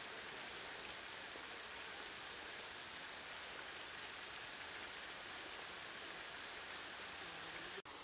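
Steady, even hiss of background noise, with a sudden brief dropout near the end.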